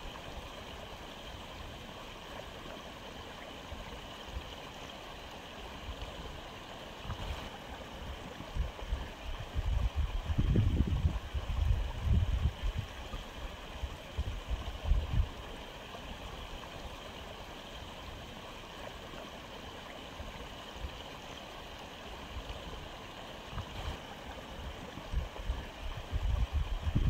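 Aquarium filter running, a steady hiss and gurgle of moving water. Low rumbles come through about ten to fifteen seconds in and again near the end.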